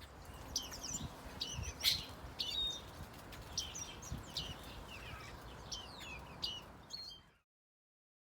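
Azure tit calling: a quick string of short, high chirps and trills, with a few soft low thumps underneath. The sound cuts off abruptly near the end.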